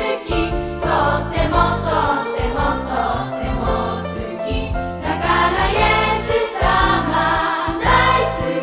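Background music with singing over a bass accompaniment.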